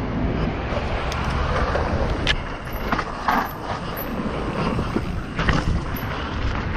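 Wind buffeting the microphone of a helmet camera on a mountain bike rolling down a dirt trail, over steady tyre noise on dirt and leaves. A few sharp rattles from the bike come through, about two, three and five and a half seconds in.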